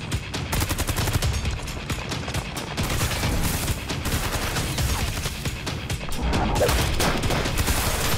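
Rapid, sustained gunfire, shot after shot in quick succession, over background music.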